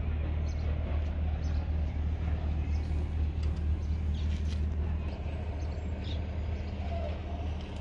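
A diesel engine idling steadily nearby, a low even drone, with a few clicks and knocks about halfway through.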